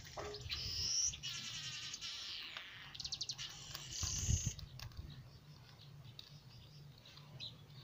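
Birds chirping and calling: a run of high chirps and trills in the first half, including a rapid trill about three seconds in and a high held note just after, then fainter scattered chirps, over a steady low hum.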